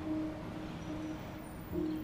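Quiet background music: a few sustained low notes, with a new note coming in near the end.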